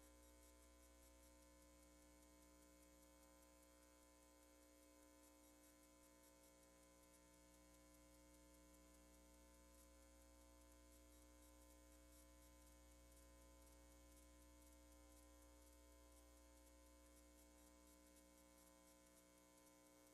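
Near silence: only a faint, steady electrical hum, with no game or crowd sound.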